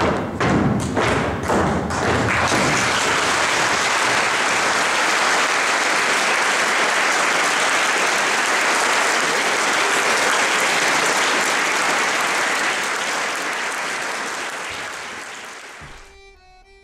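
Boots stamping in marching drill for the first couple of seconds, then a hall full of people applauding steadily. The applause fades away near the end.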